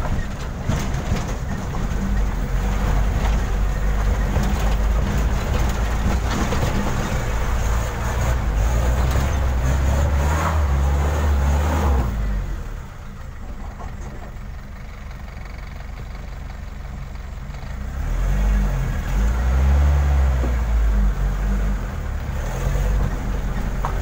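Car engine and driving noise heard from inside the cabin, moving slowly over a rough dirt road, with short knocks and rattles through the first half. The engine drops quieter about halfway through and pulls harder again a few seconds later.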